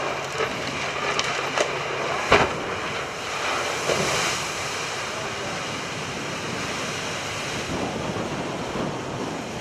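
Rough sea water rushing and wind buffeting the microphone, a steady wash of noise, with one sharp knock a little over two seconds in.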